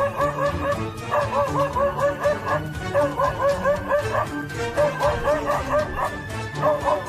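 A dog barking at a leopard in quick runs of several barks, about five a second, with short pauses between the runs, over background music.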